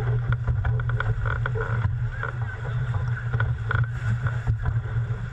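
Wind rumbling on the microphone over the rush of water along the hull of an International 14 racing dinghy under sail, with frequent short slaps and splashes of water.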